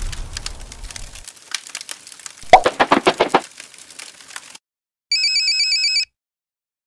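Crackling fire sound effect with a burst of louder pops about two and a half seconds in, as a low rumble dies away at the start. After a short gap comes about a second of an electronic ringing tone warbling rapidly and evenly, like a phone or radio call tone.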